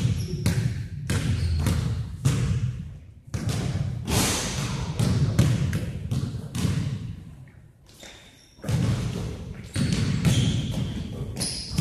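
Basketball being dribbled on a gym floor during play: repeated bounces and thuds that echo in the large hall, easing off briefly a little past halfway, with a few short high squeaks near the end.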